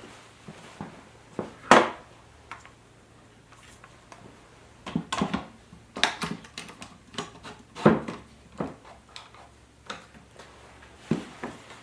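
Irregular knocks and clanks of clamps being set and tightened to hold a woodworking vise down on a workbench, with the loudest knock about two seconds in.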